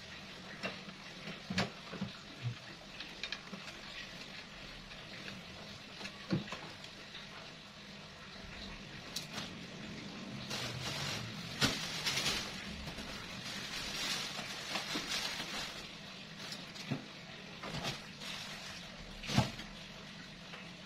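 Scattered knocks, clicks and rustling as a person stands on a wooden step stool and rummages through boxes and bags on a high storage shelf. The rustling thickens in the middle, and one sharper knock stands out near the end.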